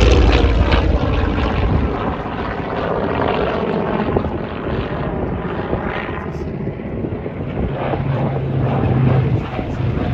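Radial piston engine of a Grumman fighter passing low overhead. Its pitch drops at the start as it goes by, then it recedes into a loud rushing drone. From about eight seconds in, the low hum of a second radial-engined fighter builds as it approaches.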